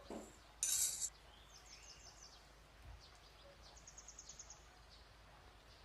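Faint, rapid high-pitched bird chirps in quiet background noise, twice in quick trains. A short, loud hiss about half a second in is the loudest sound.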